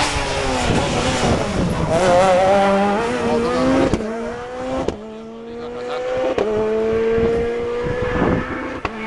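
Rally car engine at high revs, its pitch dipping and then climbing as it accelerates. Later it climbs slowly again, and the sound breaks off sharply a few times.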